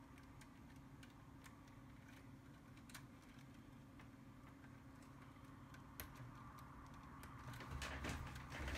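Near silence: faint scattered ticks and light rustling as hands handle wires and heat-shrink tubing at a switch, a little louder near the end, over a faint steady hum.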